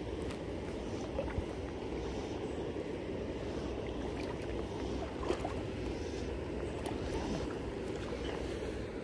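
Steady rush of flowing river water, with a low wind rumble on the microphone and a few faint clicks.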